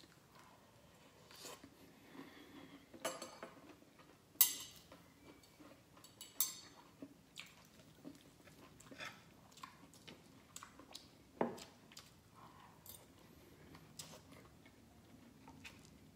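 Chewing and biting on vegetables, with a fork and knife clinking and scraping against a frying pan in a series of sharp clinks, the loudest a little over four seconds in.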